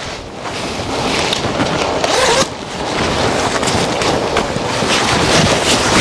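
Nylon shell of a black puffer jacket rustling and swishing as it is handled and shaken out with both hands, in continuous crinkly bursts.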